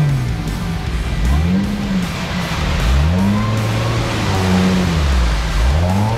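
Toyota Land Cruiser 100-series engine revving up and falling back again and again, about every second and a half, as the SUV ploughs through a mud pit. Tyres churn and splash through thick mud.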